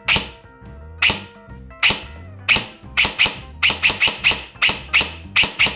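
E&C EC25 MCC airsoft electric rifle (SR-25 style, 30K motor) firing semi-automatic shots in a trigger-response test. The shots come about one a second at first, then quicken to several a second from about halfway in. They are quite loud, and the gearbox screeches a little.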